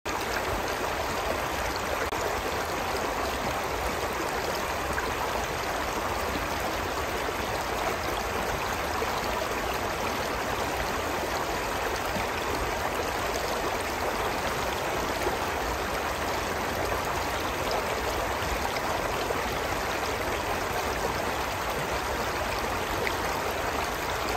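Shallow stream flowing over rocks: a steady wash of running water.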